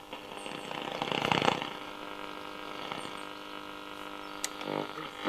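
RFT Stern-Dynamic 2030 portable radio receiving AM: a steady buzzing hum under crackling static, with a louder rush of crackle about a second in and a sharp click near the end. The crackle is interference from a distant thunderstorm.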